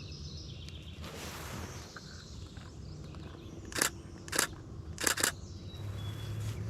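Canon Rebel T7i DSLR shutter firing four times within about a second and a half, a little past the middle: four short, sharp clicks, the last two close together.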